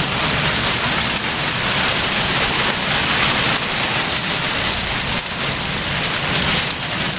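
Hailstorm: heavy rain and hail pelting down in a dense, steady hiss, with faint ticks of single stones striking.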